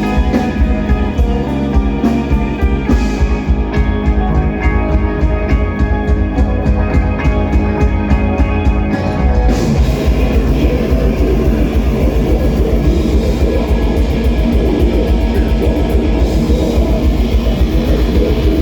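Metal band playing live, with guitars and a drum kit. About nine and a half seconds in, the music changes from held guitar chords over steady cymbal strokes to a denser, heavier section.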